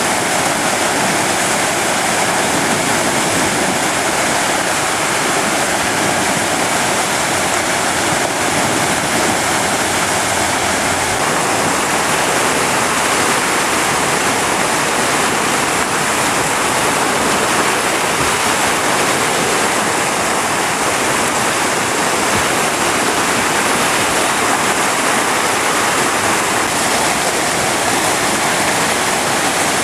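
High floodwater pouring over a low dam and churning in the white water below it: a steady, loud rushing of water.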